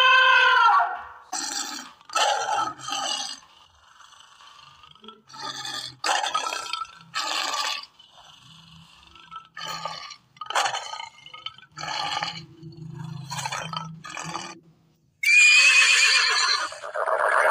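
A string of short animal-call sound effects, one after another with brief pauses between them, followed by a loud horse whinny starting about 15 seconds in.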